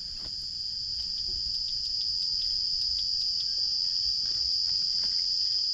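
Steady, high-pitched chorus of insects shrilling, slowly swelling in loudness, with faint scattered clicks.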